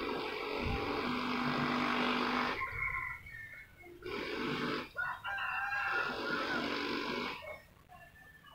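Drawn-out animal calls in three bouts: a long one that ends about two and a half seconds in, a short one, then another long one, fading out near the end.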